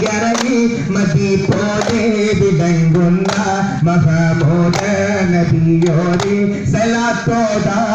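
Daff muttu: a male voice sings a devotional song in long held notes over a group of daf frame drums struck in a steady rhythm.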